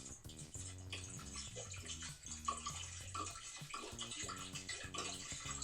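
Water being poured out of a bottle, a steady run of liquid with repeated pulses as it flows.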